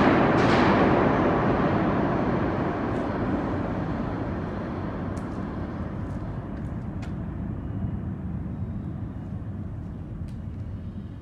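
New York City subway train passing through the station without stopping, its rumble loud at first and then fading steadily as it moves away. A few faint clicks come near the end.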